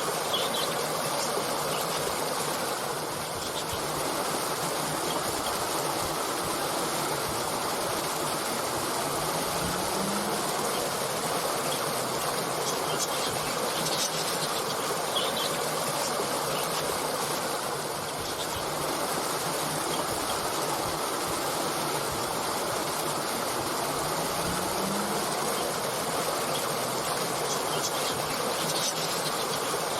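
Stream water flowing and splashing steadily over stones, with a few brief high chirps from small birds.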